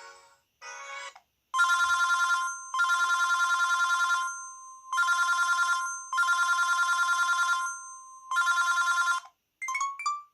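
VK530 mobile phone playing a built-in ringtone that imitates a telephone bell: a fast two-pitch trill in repeated bursts a second or two long, with short gaps between. Near the end a few quick rising beeps begin.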